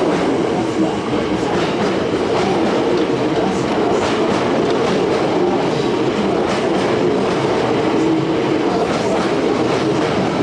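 Hankyu Railway electric commuter train running past close along a station platform: wheels clicking steadily over rail joints under a continuous motor hum.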